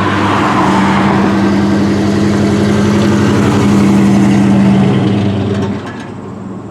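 A car's engine running close by with a steady hum, then falling away sharply about six seconds in.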